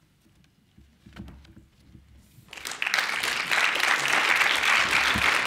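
Audience applauding, breaking out about two and a half seconds in after a few faint knocks in a quiet hall, then holding steady and loud.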